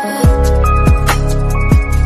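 Background music with a deep drum beat that drops in pitch on each hit, steady held notes and quick ticking hi-hats.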